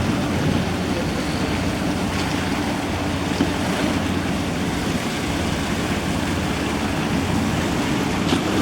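Steady drone of a boat's engine with water rushing along the hull and wind buffeting the microphone.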